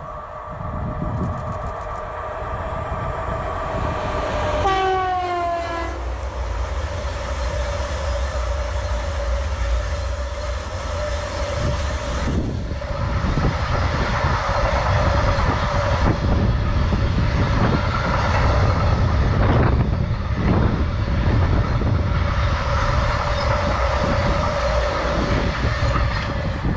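A class 243 electric locomotive approaches with a steady whine and sounds its horn as it passes about five seconds in, the horn's pitch dropping. It is followed by the long, heavy rumble and wheel clatter of a train of loaded car-carrier wagons rolling by.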